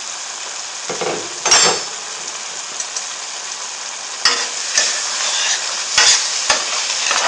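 Thick, nearly dry saag gosht (meat and spinach curry) sizzling steadily in a metal pan as it is stirred. A utensil clinks and scrapes against the pan about a second and a half in and several times in the second half.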